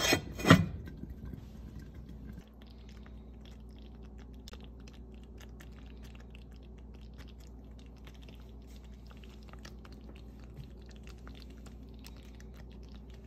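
A heavy lid knocks onto an enamelled cast-iron Dutch oven near the start. Then the pot of dumplings simmers: faint, irregular little pops of bubbling broth over a steady low hum.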